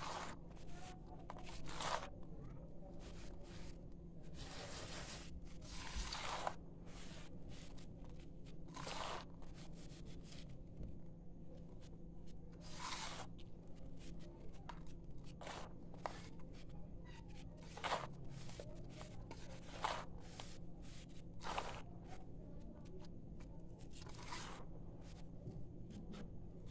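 Hands rubbing and squeezing dry sifted sand-cement powder in a bowl: irregular soft crunching and rustling of the gritty grains, a rush every second or two, over a faint steady low hum.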